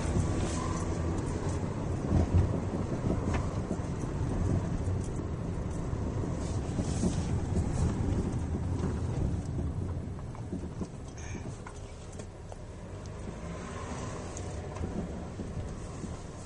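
Steady low rumble of a moving vehicle, with a few knocks, growing quieter about ten seconds in.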